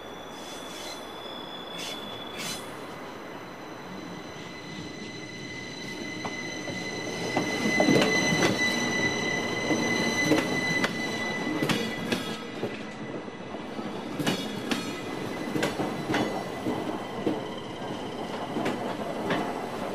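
Red Rhaetian Railway passenger train pulling into the station. Its wheels give a high, steady squeal that grows louder as it nears, then knock and clack over the rail joints as the cars roll past.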